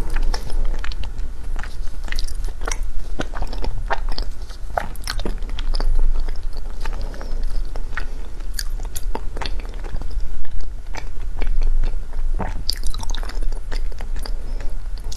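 Close-up chewing and crunching of frozen matcha ice, with many sharp, irregular cracks as the ice breaks between the teeth.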